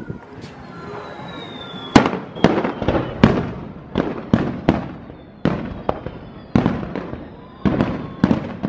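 Fireworks display: aerial shells bursting with sharp bangs in quick succession, about three a second, the loudest about two seconds in. A thin falling whistle comes before the bangs begin.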